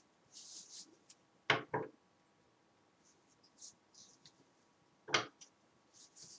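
Bristle hairbrush brushing gel-slicked hair back at the side of the head: a string of short, soft, hissing strokes. Louder rubs or knocks stand out twice in quick succession about a second and a half in, and once more about five seconds in.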